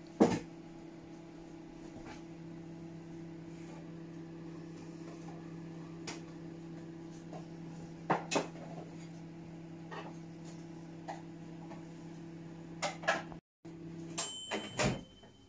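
A steady electric hum with a few short sharp knocks and clicks over it, the loudest right at the start. The hum cuts off abruptly near the end, and a few more knocks follow.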